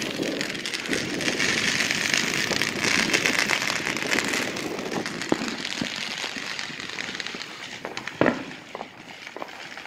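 Fireworks hissing and crackling, with scattered sharp pops. The hiss fades after about five seconds, and there is a louder single pop about eight seconds in.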